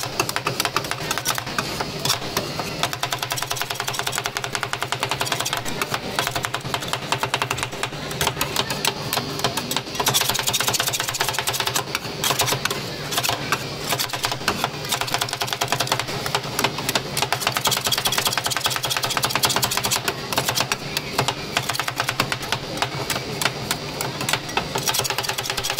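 Two metal spatulas rapidly chopping and tapping on the frozen steel plate of a rolled ice cream stall, a fast, steady clatter of metal-on-metal clicks as the ice cream mix is chopped and spread.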